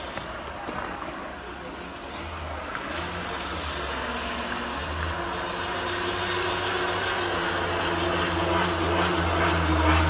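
Small remote-control net-laying boat's motor running at speed, a steady low hum with a higher drone above it, growing steadily louder as the boat approaches.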